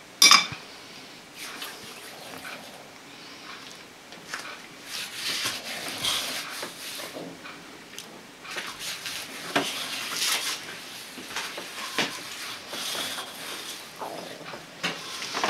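A sharp clink of a steel knife set down on a ceramic plate about a quarter second in, then soft, irregular rustling and squishing as a hand presses into and works a large mass of risen yeast dough in an enamel bowl.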